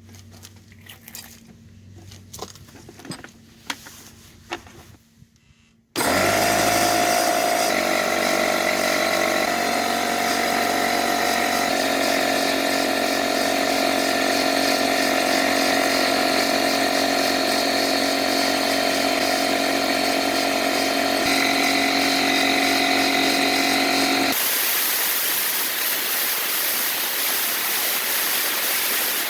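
A few light clicks and knocks, then a Porter-Cable C2002 pancake air compressor's motor and pump start abruptly about six seconds in and run steadily under load for about eighteen seconds. Its pressure switch is faulty and does not shut it off at 150 psi. The motor then stops, and a steady hiss of escaping air follows.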